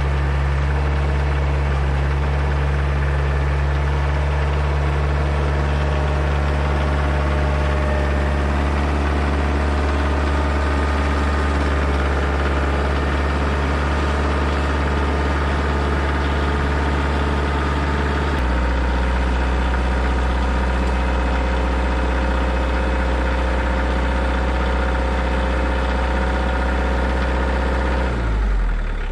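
Diesel engine of a Kioti DK40se hydrostatic compact tractor running steadily. Its note changes about 18 seconds in and falls off again just before the end as the engine speed drops.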